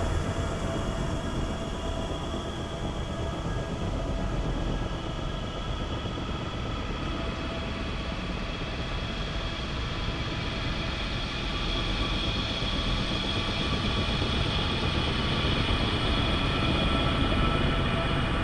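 Buzzing ambient drone sound effect: a steady low rumble with faint held tones above it, swelling a little louder toward the end.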